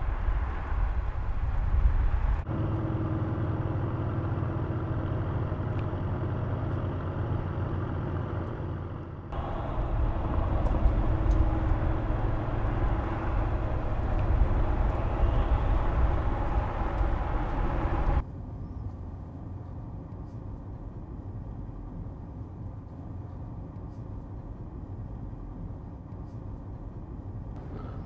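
Mercedes-AMG GLE 63 S's twin-turbo V8 running as the SUV drives, with tyre and road noise, cut together from several shots. It drops to a noticeably quieter, steadier sound for the last ten seconds.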